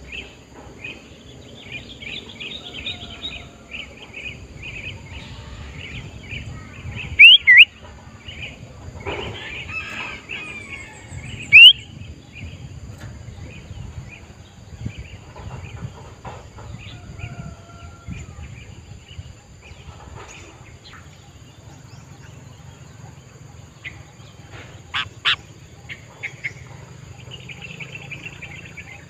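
Sooty-headed bulbul (kutilang) calling: a few loud, sharp whistled notes about seven and eleven seconds in and again near twenty-five seconds, over steady chirping of other birds.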